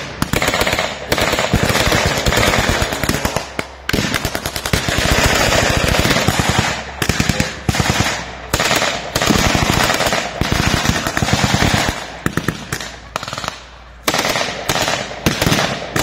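Blank gunfire in a WWII battle reenactment: dense, rapid shots and bursts of automatic fire from several weapons, with short lulls about four seconds in and again near the end.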